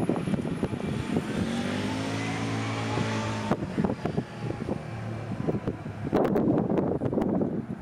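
Intercity train hauled by a DB Class 101 electric locomotive running away into the distance: rolling noise with a humming whine that falls in pitch and fades. Near the end, a burst of rumbling noise with clicks.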